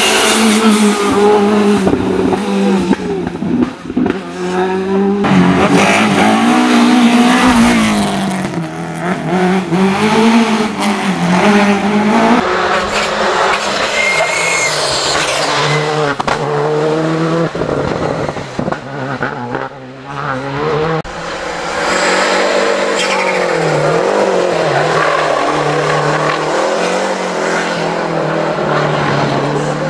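Rally cars, among them Škoda Fabia R5s, driven hard through corners one after another. The engines rev up and fall back repeatedly through gear changes and braking, with some tyre squeal.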